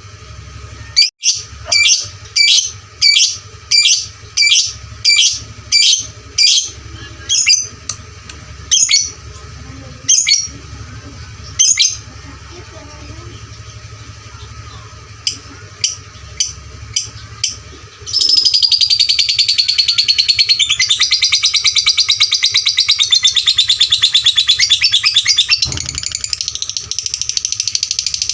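Lovebird singing loudly: a run of sharp, high chirps about two a second, a few scattered chirps, then from about two-thirds of the way through a long, fast, unbroken chattering trill, the 'ngetik' then 'ngekek' song that keepers prize in a fighter lovebird.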